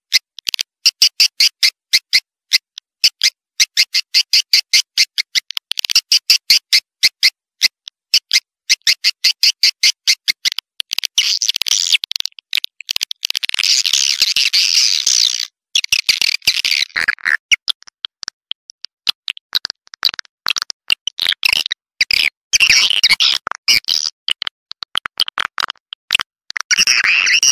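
Swiftlet calls: rapid, high-pitched chirping twitters and clicks in quick trains, running into longer continuous trills around the middle and again near the end.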